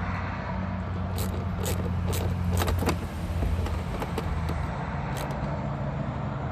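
Steady low hum of an idling vehicle engine, with a handful of short, sharp clicks and light knocks from the door panel being screwed back on.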